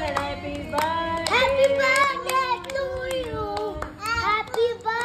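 Children singing together, with hands clapping along at a steady beat.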